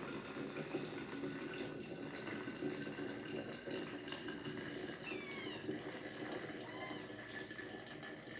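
Hot coffee poured from a saucepan through a cloth coffee strainer, a steady trickle of liquid running through the filter.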